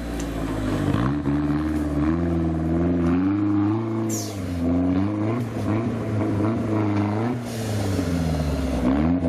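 Off-road 4x4 competition vehicle's engine revving up and down repeatedly under load as it crawls through deep mud, its pitch rising and falling several times. A brief high squeal sounds about four seconds in.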